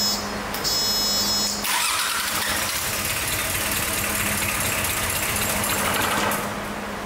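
The starter motor cranks the Sabb M4 marine diesel for about four and a half seconds, starting about two seconds in, then stops without the engine catching. This is a test crank to see whether the rebuilt injector pump delivers fuel. A steady hum from the electric lift pump runs before and after the cranking.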